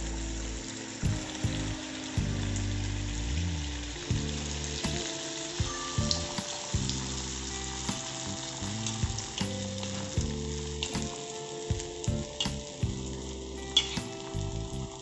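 Neyyappam batter deep-frying in hot coconut oil in a cast-iron kadai: a steady sizzle of bubbling oil, with scattered sharp clicks throughout.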